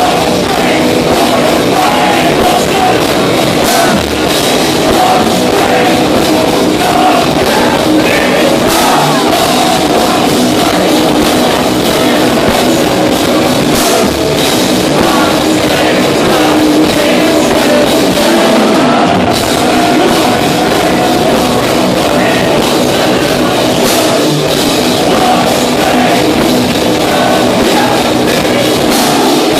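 Melodic death metal band playing live and loud without a break: drum kit, distorted guitars and vocals.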